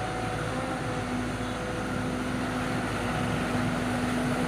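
JCB 3DX backhoe loader's diesel engine running steadily, a constant drone with a steady hum.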